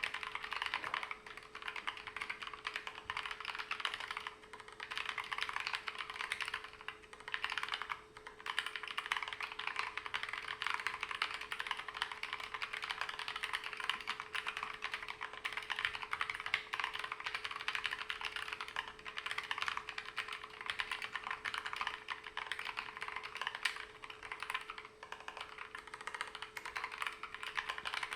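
Continuous fast typing on a Keychron K3 Pro low-profile mechanical keyboard with Gateron Red linear switches: a dense run of light key clicks, broken by a few brief pauses. A faint steady hum runs underneath.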